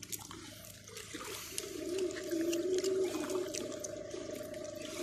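Lake water sloshing and splashing at the shallow shore, under a faint steady hum.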